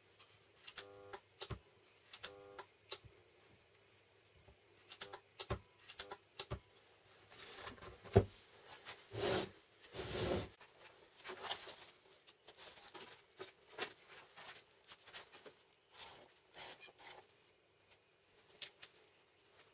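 Light handling noises: scattered clicks and knocks, two short buzzes early on over a faint hum, then scrapes and taps of a thin aluminium sheet and a steel ruler being moved on a wooden bench.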